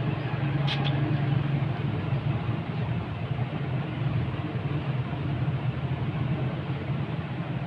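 Steady low hum and rumble of a running motor, with one brief sharp high sound about a second in.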